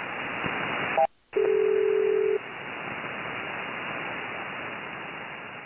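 Shortwave receiver hiss on an empty single-sideband air traffic control channel between transmissions. About a second in there is a brief drop-out, followed by a single steady tone lasting about a second, and then the hiss goes on, fading toward the end.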